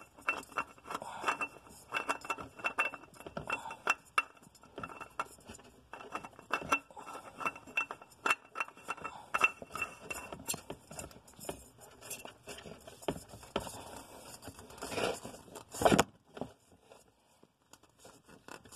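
A new spin-on oil filter being threaded on by hand under a car: a busy run of small metallic clicks, clinks and scrapes, with a louder knock and scrape about fifteen seconds in.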